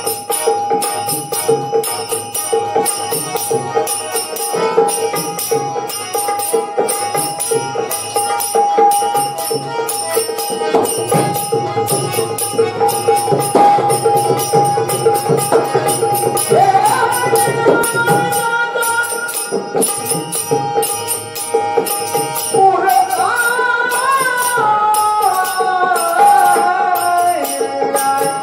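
Marathi gavlan devotional folk music: a steady held drone under fast, even strikes of jingling percussion. A melody with sliding pitch comes in a little past halfway and grows busier near the end.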